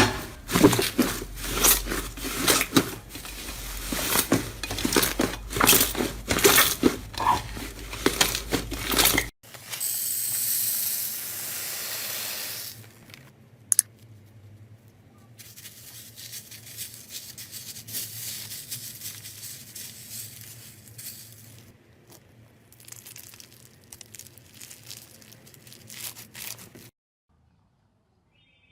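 Slime being squished and worked, with dense crackling and popping for about nine seconds. Then comes a steady hiss for about three seconds, followed by softer crinkling, and the sound cuts off near the end.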